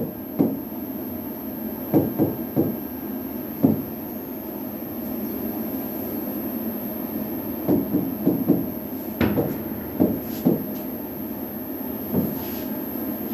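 Stylus pen knocking and tapping against an interactive smart board screen while writing: a dozen or so light, irregular knocks in clusters, the sharpest about nine seconds in.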